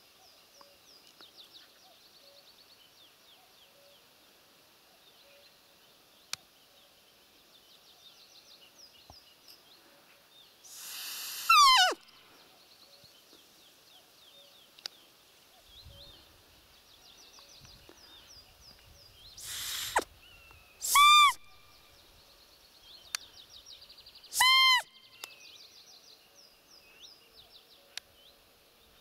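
Roe deer call blown to imitate a doe's squeak and lure a roe buck: a longer falling squeak with a breathy hiss before it about a third of the way in, then two short, sharp falling squeaks about three seconds apart. Faint songbird chirping runs underneath.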